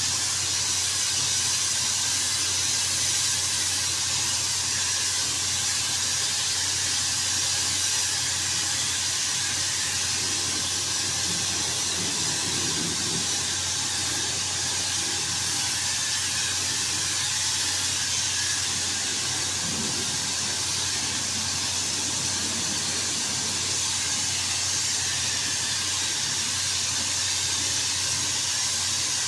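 Compressed-air paint spray gun hissing steadily as paint is sprayed onto a door, over a steady low hum.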